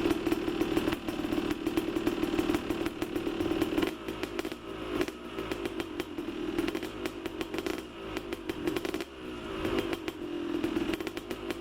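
Motorcycle engine running at a steady speed with a light clatter over it, easing off briefly about four seconds in and again near nine seconds before picking back up.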